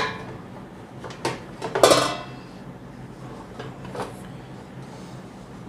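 Clattering knocks of an air fryer's metal cooking pan and basket being handled and fitted back together: a few sharp clanks in the first two seconds and a lighter knock about four seconds in.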